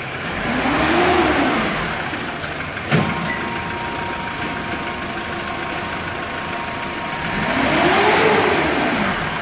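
A car engine revs up and settles back down twice, about six seconds apart, and runs steadily in between. A single click comes about three seconds in, followed by a faint steady whine.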